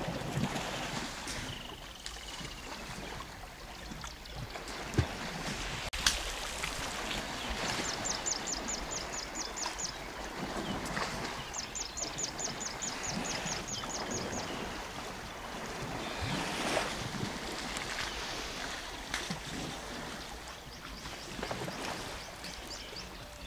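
African savanna elephants splashing and sloshing in muddy river water as they bathe and play, with a few sharper splashes.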